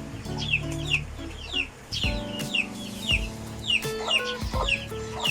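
Background music with a slow stepping melody, over a steady string of high, falling chirps about two to three a second.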